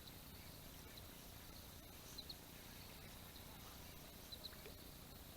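Near silence over a quiet background, with faint short high chirps, some in pairs, repeating every second or so.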